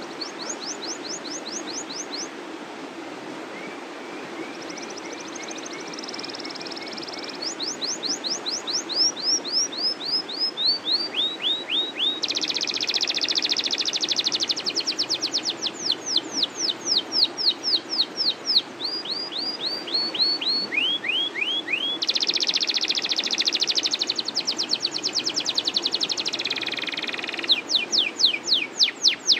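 Domestic canary singing a long, rolling song: runs of quick down-sweeping whistled notes, about five a second, alternating with dense buzzing trills.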